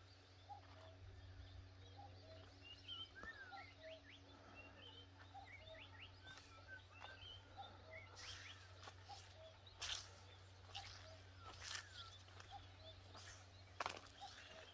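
Faint night outdoor ambience: many short chirping calls from small animals, over a low steady hum, with a few soft knocks, the loudest near the end.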